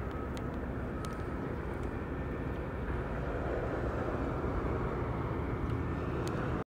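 Steady outdoor background rumble with a few faint clicks, stopping suddenly at the very end.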